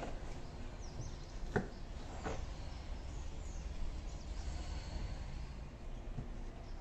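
Low outdoor background noise with faint bird chirps, and two soft knocks about a second and a half and two seconds in as a person shifts onto a padded bed in the back of a hatchback.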